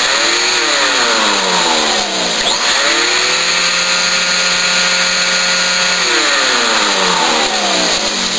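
Household vacuum cleaner running loud with a steady rushing hiss, its motor hum sliding down and back up in pitch several times and holding level for a few seconds in the middle. It is pulling suction through the platen of a homemade vacuum former.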